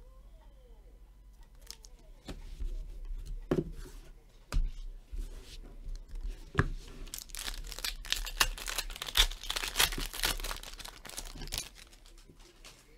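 Foil wrapper of an Upper Deck hockey card pack being torn open and crinkled, with cards clicking against each other as they are handled. Scattered sharp handling clicks start about two seconds in, then a dense run of tearing and crinkling comes in the second half.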